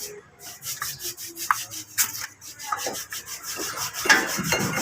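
Handling noise from a removed brake rotor disc: irregular knocks and scraping, with sharp knocks about a second and a half and two seconds in, and a cluster near four seconds.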